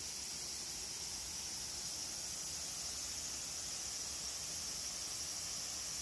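Spring water running steadily over rocks in a shallow stream and pool, an even rushing hiss with a strong high-pitched edge above it.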